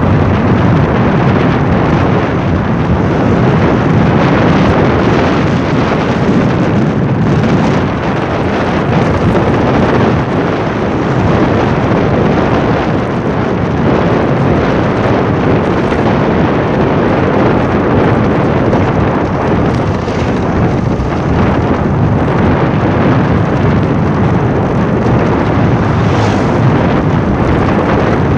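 Steady, loud road and wind rumble of a car driving, heard from inside the vehicle, with wind buffeting the microphone. It is a dense rumble with no distinct engine pitch.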